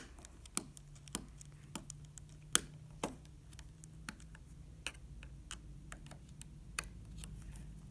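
Irregular light clicks and taps of a phone's metal and plastic parts and a small screwdriver being handled, with a few sharper knocks among them, over a faint low hum.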